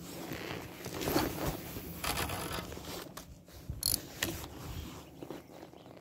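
Spinning reel being cranked, its gears giving an uneven mechanical whirring and clicking, with a short sharp scrape about four seconds in.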